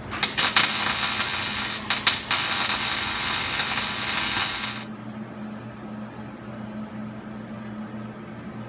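Welding arc crackling as a bead is run on a sheet-metal floor pan. It sputters a few times as it strikes, breaks off briefly about two seconds in, then runs steadily and cuts off suddenly near the halfway point. A steady low hum carries on afterwards.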